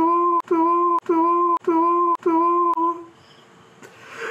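A voice humming a mournful tune: five short notes on the same pitch, about two a second, each starting with a faint click, then a pause a second long.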